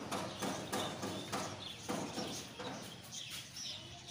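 Footsteps on a hard floor, about two to three a second, walking away and growing fainter.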